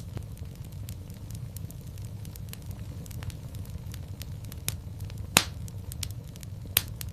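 Fireplace fire crackling: a steady low rumble of the flames with many small irregular snaps. A loud pop comes about five seconds in, and another near the end.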